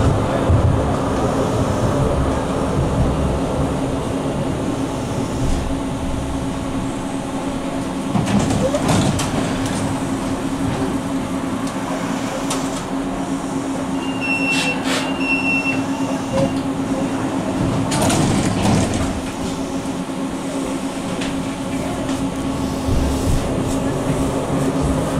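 Inside an NGT8B low-floor tram: the rolling noise dies away as it halts at a stop, leaving a steady electrical hum from the standing car. A short high beeping door signal sounds about halfway through, with door movements either side, and the low rumble picks up again near the end as the tram moves off.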